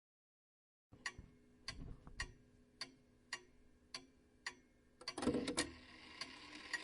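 Grandfather clock ticking steadily, a little under two ticks a second, after about a second of silence. Near the end comes a brief clatter of quick clicks and a rattle from the clockwork before the ticking goes on.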